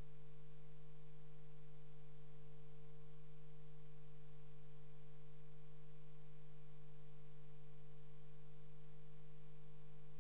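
Steady electrical hum: a constant low tone with a fainter higher tone above it, unchanging throughout, with no other sound.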